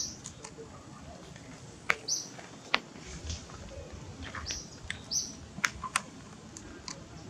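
Birds chirping: three short high chirps spaced a second or two apart, with a few sharp clicks in between over a low outdoor background.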